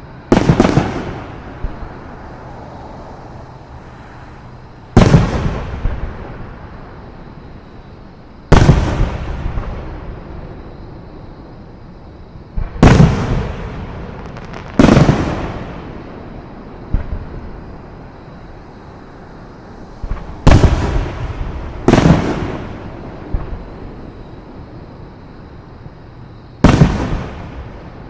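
Fireworks display shells bursting: about eight loud booms a few seconds apart, each trailing off in a rolling echo, with a few smaller pops in between.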